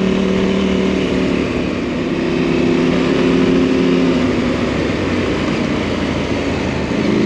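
KTM 790 Rally's parallel-twin engine running under way, under a steady rush of wind noise. The engine note shifts pitch about two seconds in and sinks into the wind after about four seconds.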